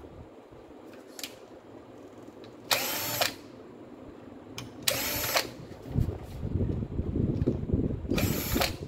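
Cordless drill driver with a long screwdriver bit whirring in three short bursts, about half a second each, as it backs out housing screws, with handling and rustling between the bursts.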